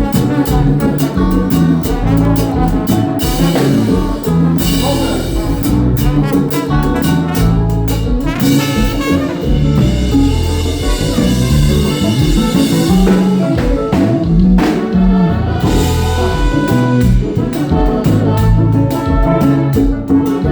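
A live konpa band playing at a sound check: drum kit and bass keeping a steady groove under a horn section of trumpet and saxophone.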